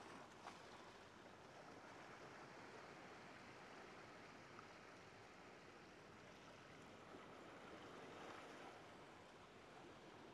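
Faint, steady wash of ocean waves breaking on a shore.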